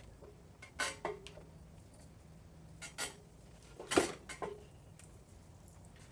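Small metal parts and hand tools clinking and clicking as they are handled: about five short sharp clinks, some with a brief ring, the loudest about four seconds in.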